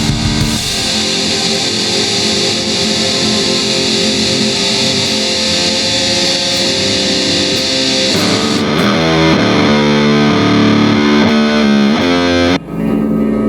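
Doom-style instrumental track at 100 beats per minute, with distorted electric guitar and bass. About eight seconds in the bright top end falls away and the guitar and bass lines stand out more clearly. Near the end the music cuts out for an instant, then comes back.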